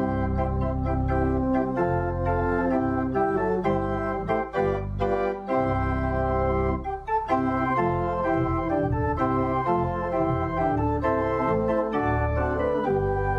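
Organ playing a slow hymn tune in held chords over a bass line that changes note every second or so, with no singing.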